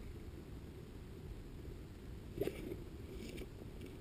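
Faint low outdoor background rumble picked up by a stationary camera, with a soft knock about two and a half seconds in and a few faint ticks shortly after; the quadcopter's motors are not running.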